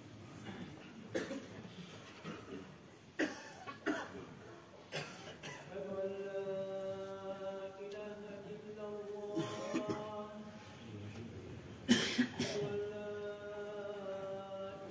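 Several coughs and a throat clearing, then from about six seconds in a muezzin's voice chanting the call to prayer in long held notes, broken by another cough near twelve seconds.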